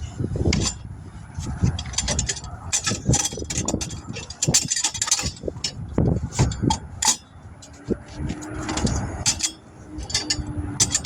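Irregular clicks, scrapes and knocks of hand tools working on a car wheel rim, where stick-on balance weights and their adhesive are being removed. A faint steady hum joins about eight seconds in.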